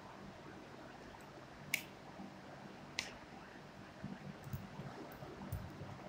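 Plastic glue stick being handled: two sharp clicks a little over a second apart, then soft knocks and small ticks of hands and stick against a plastic tabletop.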